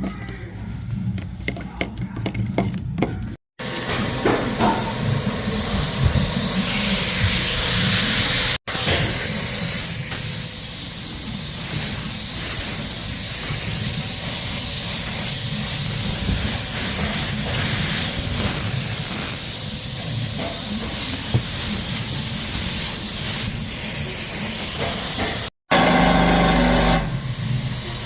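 Steady loud hiss of compressed air through a paint spray gun, broken by abrupt cuts into several stretches.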